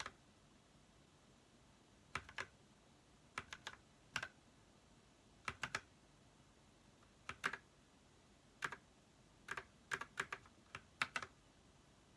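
Keys being pressed on an Ajazz mechanical keyboard fitted with cherry blossom keycaps: sharp clacks in small clusters of two or three, with pauses of about a second between clusters, rather than continuous typing.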